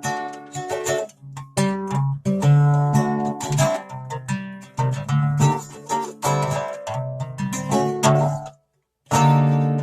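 Acoustic guitar played solo, a run of plucked and strummed notes that ring on. The playing stops dead for about half a second near the end, then starts again.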